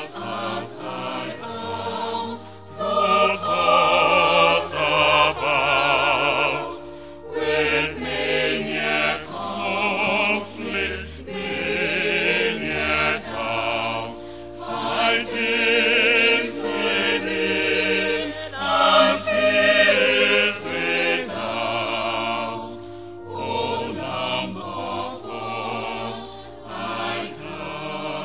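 Mixed choir of men's and women's voices singing a hymn in harmony, in long phrases separated by brief pauses.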